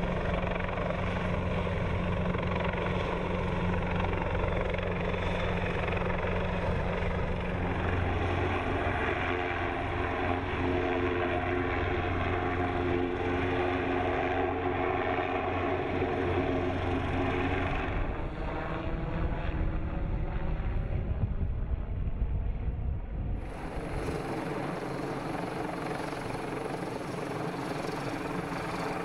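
Large helicopter hovering overhead, its rotor and turbine engines running steadily with a low drone. The sound shifts abruptly about eight seconds in, again near the middle, and is thinner over the last few seconds.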